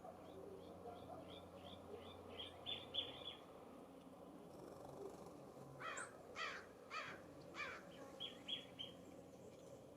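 Birds calling: a run of short high chirps that quicken and grow louder over the first three seconds, then four harsh calls of a California Scrub-Jay about half a second apart, followed by a quick run of four high notes.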